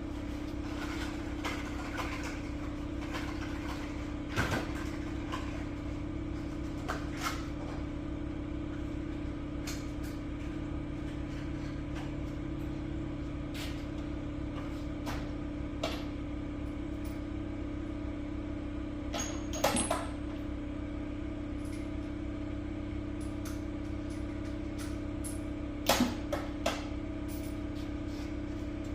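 Steady mechanical hum, with a few sharp metal clinks and knocks of sockets being handled while a spark plug socket size is tried; the loudest clinks come about a third of the way in and again near the end.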